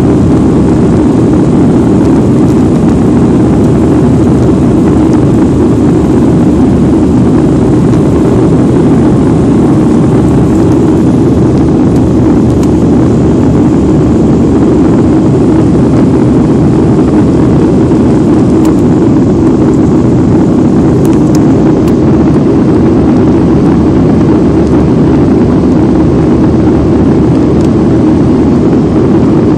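Airliner jet engines and airflow heard as a steady, loud roar inside the passenger cabin during the climb after takeoff.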